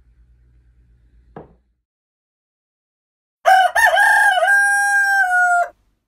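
A rooster crowing once, a single cock-a-doodle-doo lasting a little over two seconds. It begins about three and a half seconds in, wavers at the start and ends on a long held note.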